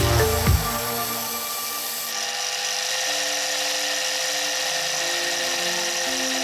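An electric power tool's motor running steadily with a constant whine, under background music with slow held low notes.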